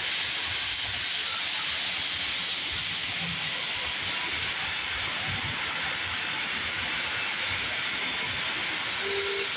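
Steady hiss over an uneven low rumble, with faint voices in the background.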